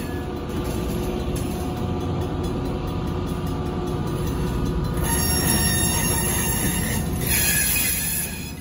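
Freight train of covered hopper cars rolling past, the wheels rumbling steadily on the rails. Twice in the second half a high-pitched wheel squeal rises over the rumble.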